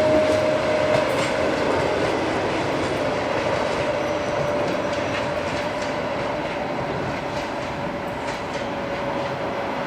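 Passenger train hauled by a ChS7 electric locomotive rolling past, wheels clicking over the rail joints under a steady whining tone that sags slightly in pitch. The whole sound slowly fades as the train draws away.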